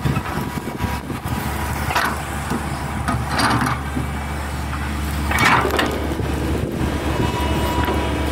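Hitachi crawler excavator's diesel engine running steadily under load as the machine digs and lifts a bucket of earth, with three brief louder rushes of noise about 2, 3.5 and 5.5 seconds in.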